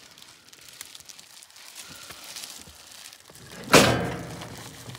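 Faint wet rustling and squelching of a sleeved arm working inside a cow's rectum, with one sudden loud thud a little past halfway through.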